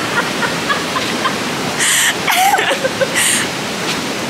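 Steady rush of flowing river water. About two to three seconds in, three short hissing bursts cut through it.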